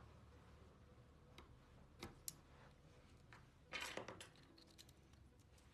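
Faint small clicks and taps of a tool and fingers on the flex cable and frame of an opened smartphone as the charging flex cable is worked free, with a short scraping rustle a little under four seconds in.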